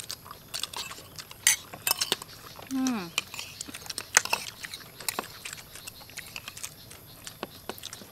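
Metal spoons and forks clinking and scraping against plates and stainless steel serving trays, many short irregular clicks. A brief voice with falling pitch sounds about three seconds in.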